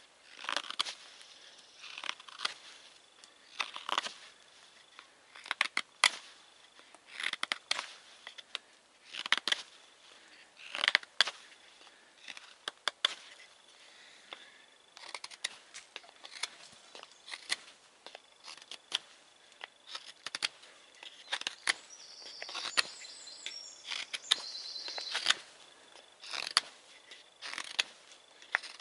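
Mora knife shaving a wooden knife sheath: a run of short, sharp scraping cuts, roughly one every second, as the wood is thinned down.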